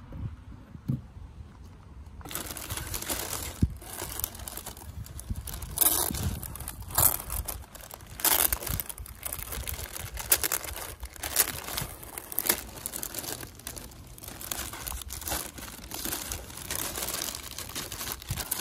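White tissue paper and a clear plastic packing bag crinkling and rustling as a hand digs through them in a cardboard box. It is quiet at first, then dense crackling with many sharp crinkles starts about two seconds in.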